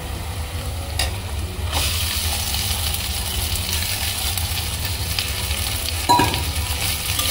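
Onion, ginger, garlic and green chilli sizzling in oil in a steel kadhai. The sizzle grows louder about two seconds in, as boiled mashed potatoes are tipped in from a steel bowl. Near the end comes a short ringing metal clink against the pan.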